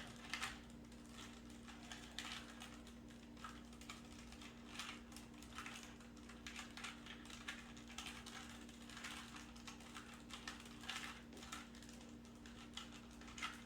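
3x3 Rubik's cube being scrambled: its plastic faces are turned over and over in a faint, irregular run of quick clicks, with a steady low hum underneath.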